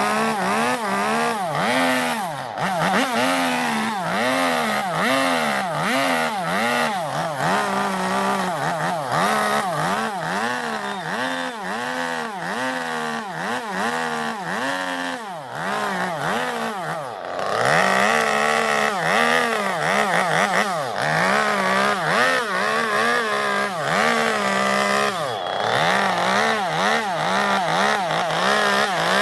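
Two-stroke chainsaw cutting into zelkova wood to hollow a bowl, the engine pitch dipping and recovering about once a second as the chain bites and lifts. After about two-thirds of the way, it runs more steadily at high revs.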